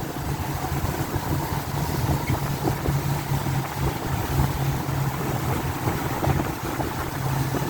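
Motorboat engine running with a steady low drone, under wind buffeting the microphone.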